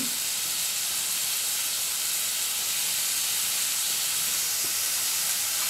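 Chopped fenugreek leaves sizzling in hot oil in a pan, a steady hiss.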